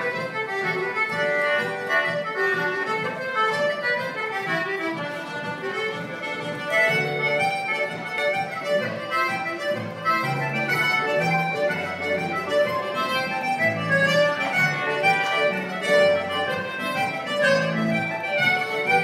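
A live Irish traditional tune played by a small ensemble, with a button accordion carrying the melody alongside other instruments. Low bass notes join about seven seconds in.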